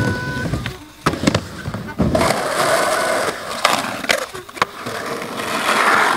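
Skateboard sounds: the board clacks sharply several times in the first two seconds, then a long scraping grind runs along a concrete ledge with wheels rolling and a few more clacks.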